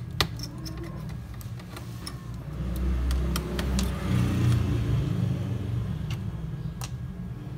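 Scattered small sharp clicks and taps of a screwdriver and metal parts while the heatsink and fan screws of a laptop are being undone, over a steady low rumble that swells about two and a half seconds in.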